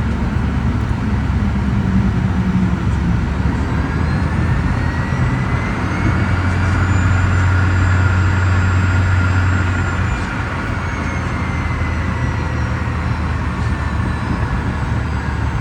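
Cirrus Vision Jet SF50's single Williams FJ33 turbofan running over a steady rush of air noise. A whine rises in pitch about four seconds in, then falls away after about ten seconds, when the low rumble also drops as the engine spools down.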